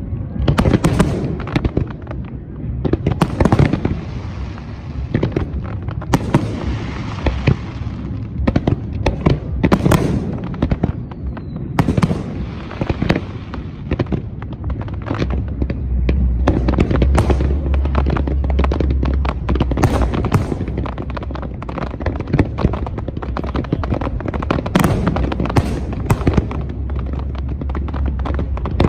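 Aerial fireworks display: a dense, continuous run of shell bursts, sharp bangs and booms, many in quick clusters, over a low rumble.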